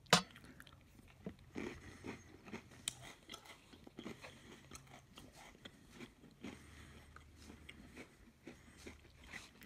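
A man chewing Oreo cookies close to the microphone: irregular small crunches and mouth clicks, with one sharp click just after the start.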